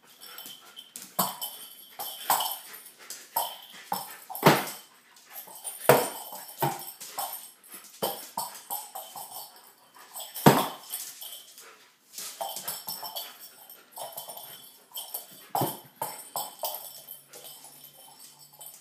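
Irish setter pawing and scrabbling on a wooden floor: claws scraping and tapping, with several sharp thumps, and now and then a short whimper.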